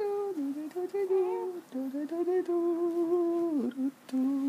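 A woman humming a simple tune in a few long held notes, with a short break near the end before one last note.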